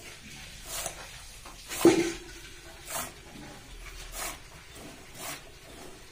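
Milk squirting from a cow's teat into a plastic bucket during hand milking: a short hiss about once a second, in a steady rhythm. About two seconds in there is a single louder knock.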